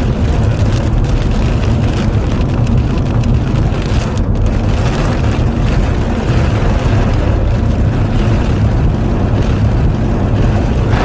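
Steady, loud rushing noise with a heavy low rumble: wind and road noise in a moving car.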